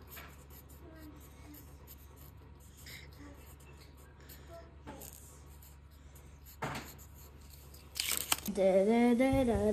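Pencil writing on paper in faint scratchy strokes. A loud rustle comes about eight seconds in, and then a person starts humming a wavering tune near the end.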